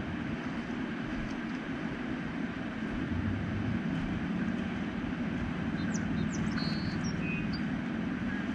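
Steady low rushing outdoor noise, with a few faint, short high chirps about six to seven seconds in.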